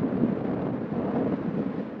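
2002 Seat Leon FR 1.9 TDI on the move: a steady rumble of road and wind noise carrying the strange wheel noise that the owner cannot place, which he says is neither the brakes nor the disc's dust shield.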